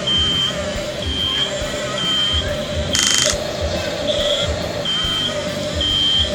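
Reversing warning beeper from a remote-control construction vehicle's sound unit. It sounds a high beep about once a second, alternating with a lower tone, and a short rattle comes about three seconds in.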